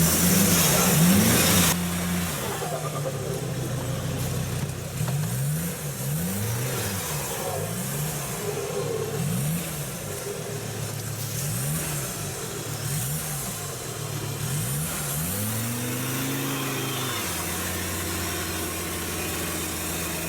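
Diesel engine of an off-road vehicle being revved up and down in short, repeated bursts while driving in mud, with one longer rev near the end. A loud rushing noise runs over the engine for the first couple of seconds.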